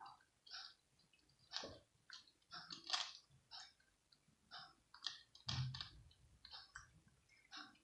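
A cat crunching dry kibble, an irregular series of crisp crunches about two a second, with one louder crunch and a dull knock a little past halfway.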